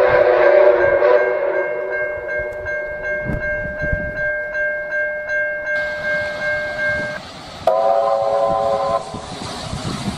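Steam locomotive chime whistles: a long, steady multi-note blast over the rhythmic beat of a working engine's exhaust, cut off about 7 seconds in, then a shorter whistle blast. At the end comes the running noise of a train passing at speed.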